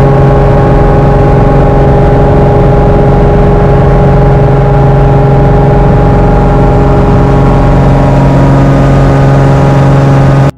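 Single-engine light aircraft's piston engine and propeller running at high power on the takeoff roll, heard from inside the cockpit as a loud, steady drone.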